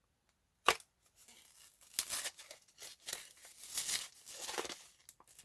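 Packaging being torn open and crinkled by hand: a sharp click, then several seconds of irregular tearing and rustling.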